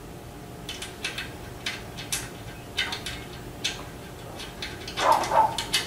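Light metal clicks and taps of bolt, nut and bracket hardware on a Victory 4x4 roof rack being handled as a nut is fitted onto a bolt, about a dozen scattered clicks. A louder short sound comes about five seconds in.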